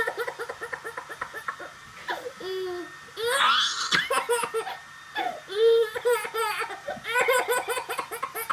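A baby laughing in a long run of short, quick laughs, with a louder burst of laughter about three and a half seconds in.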